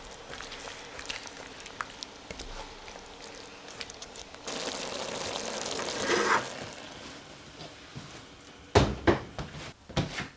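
Chicken and vegetables cooking in sauce in a steel wok, stirred with a spatula, with light clicks and a hiss that builds for a couple of seconds about halfway through. Near the end come several heavy thumps.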